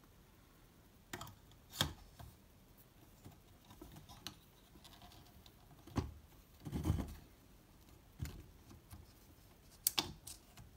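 Handling noise from a plastic smartphone adapter mount being fitted onto a telescope eyepiece: scattered sharp plastic clicks and knocks, with a short rubbing scrape about seven seconds in.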